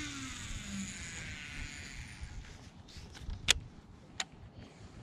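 A baitcasting reel's spool spinning out on a cast, a whine that falls in pitch and fades as the spool slows in the first second or so. Later come two sharp clicks, under a second apart.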